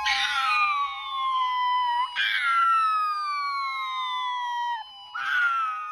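Siren wails, three times: each starts suddenly at a high pitch and slides steadily down over about two seconds, over a steady electronic tone.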